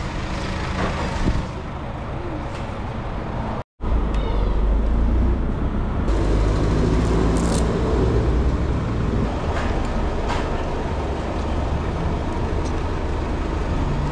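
Road traffic noise: a steady low rumble of passing vehicles. It cuts out abruptly for a moment about four seconds in and comes back louder and heavier in the low end.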